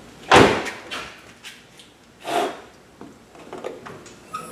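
Two loud knocks about two seconds apart, the first the loudest with a short ring after it, then a few light clicks.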